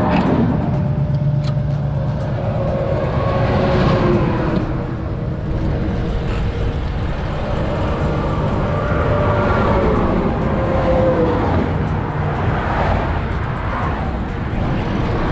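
Highway traffic rushing past the roadside shoulder, with cars and trucks going by one after another and their engine hums dropping in pitch as they pass.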